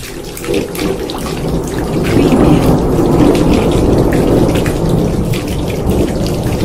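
Heavy rain pattering, with a low rolling rumble of thunder. It starts suddenly out of silence and swells over the first two seconds, then holds.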